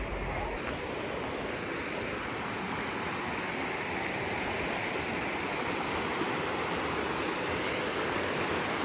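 Mountain stream rushing steadily over rocks, a continuous even water noise. A low rumble cuts off about half a second in.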